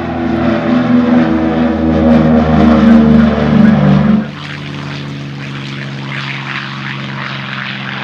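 B-24 Liberator's four Pratt & Whitney R-1830 radial engines droning as the bomber climbs out past after takeoff, the pitch sinking slowly as it passes and loudest about three seconds in. Just after four seconds the sound drops suddenly to a quieter, steady drone.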